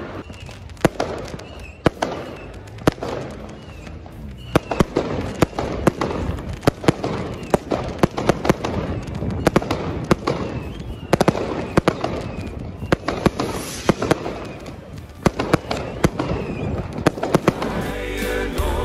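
Fireworks going off: dozens of sharp bangs in quick, irregular succession, some in tight clusters.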